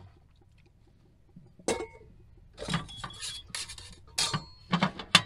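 Metal spoon stirring soup in a stainless steel pot, clinking and scraping against the pot's side. One clink about a second and a half in, then a run of clinks and scrapes from about halfway on, ending in a sharp click.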